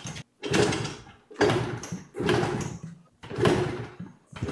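Yamaha TT-R90 dirt bike being kick-started, about one kick a second: each kick a short clatter as the small single-cylinder four-stroke turns over and dies away without catching, a sign that the engine is not yet getting what it needs to fire on its newly fitted carburettor.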